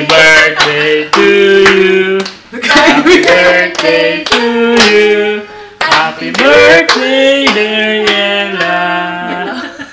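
Voices singing a song with long held notes, phrase after phrase.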